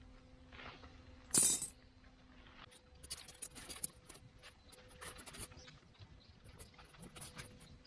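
Small hard objects being handled, giving light clicks and clinks, with one louder sharp clink about a second and a half in.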